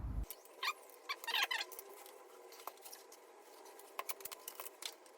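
Faint scattered scratches and light clicks from a length of copper pipe and a hand pipe bender being handled, with a run of scratchy strokes in the first second and a half and a few more clicks around four seconds in.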